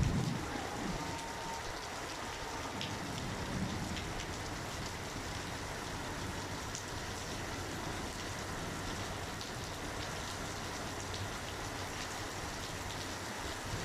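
Steady rain falling, an even hiss with scattered drop ticks, and a brief low rumble right at the start and again about four seconds in.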